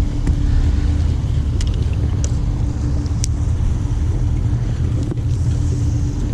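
Bass boat's motor running steadily while the boat moves: a low rumble with a steady hum over it.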